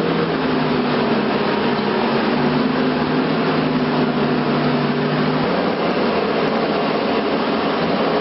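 Loud, steady engine noise with a low droning hum that stops about five and a half seconds in.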